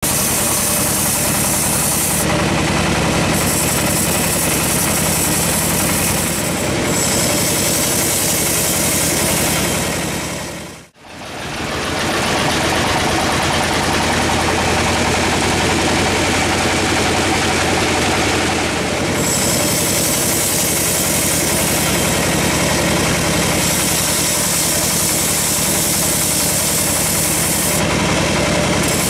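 Large band sawmill running steadily, its blade ripping lengthwise through a teak log, with the hiss of the cut rising and falling as the log feeds through. The sound briefly drops out about eleven seconds in, then the sawing resumes.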